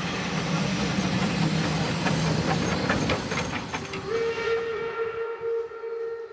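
Steam train running past close by, its coaches rumbling and the wheels clattering; about four seconds in, a steam locomotive whistle starts a long steady note that is still sounding at the end.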